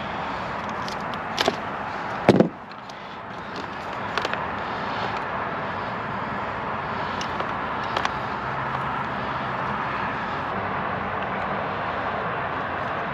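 Hand wire strippers clicking as they cut and pull the insulation off a thin automotive wire, with a loud short thump about two seconds in and a few lighter clicks after it, over a steady rush of outdoor background noise.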